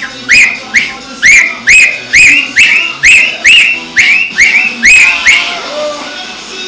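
Loud, rhythmic whistling: a run of short, shrill notes, each swooping up and then down, about two to three a second, that stops about a second before the end.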